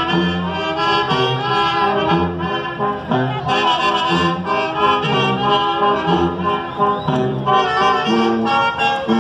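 Brass band music playing, with horns carrying the melody.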